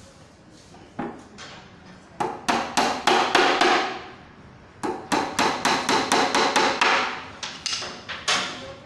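Hammer striking the edge of a wooden bed panel: a single blow, then quick runs of blows at about five a second, with a few spaced strikes near the end.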